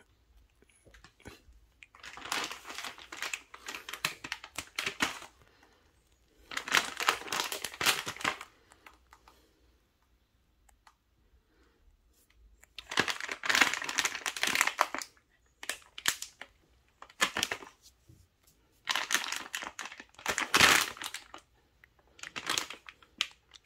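A small dog chewing and tugging at a crinkly plastic snack pouch: the pouch crinkles in about five separate bursts of one to two and a half seconds, with quiet gaps between them.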